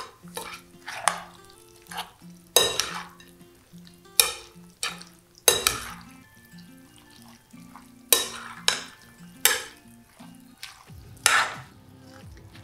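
Metal spoon and fork stirring cauliflower rice, chicken and vegetables through beaten egg in a glass bowl, scraping and clinking against the glass in uneven strokes every second or two.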